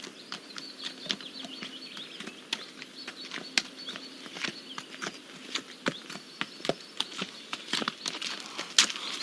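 Irregular sharp clicks and knocks, several a second, over a faint steady high tone; they grow busier and louder near the end.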